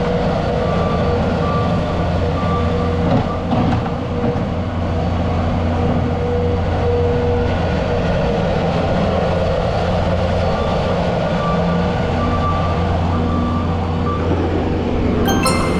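Skid-steer loader's engine running steadily under work, with a faint high tone that comes and goes. A brief metallic clatter sounds near the end.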